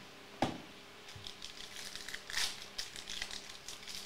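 Foil-plastic wrapper of a Topps Chrome trading card pack crinkling and crackling as it is handled and torn open, after a single soft thump about half a second in.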